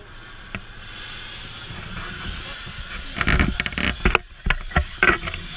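Gas cutting torch hissing steadily, with a burst of loud knocks and clanks about three to five seconds in.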